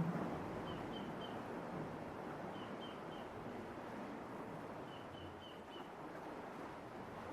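Light sea waves washing and surging through a rock tunnel, a steady rushing wash with a small swell right at the start. Over it a bird repeats short high chirps in runs of three or four, about every two seconds.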